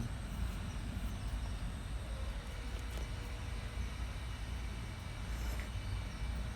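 Steady low background rumble with a faint tick about three seconds in.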